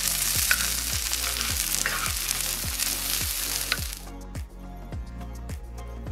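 Chopped onion sizzling in oil on a steel harrow-disc frying pan, stirred with a wooden spatula; the sizzle cuts off suddenly about four seconds in. Background music with a steady beat, about two strokes a second, runs throughout.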